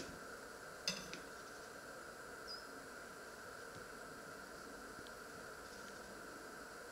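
Quiet room with a faint steady hum; about a second in, a sharp light click with a smaller one just after, as a table knife knocks on a stainless steel butter dish while butter is cut.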